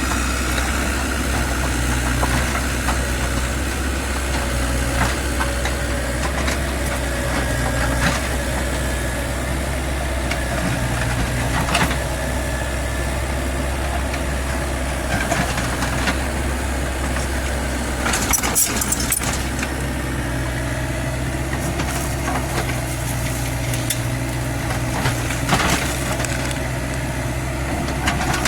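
Kubota U50 excavator's diesel engine running steadily, with scattered short knocks and a brief high-pitched hiss about two-thirds of the way through.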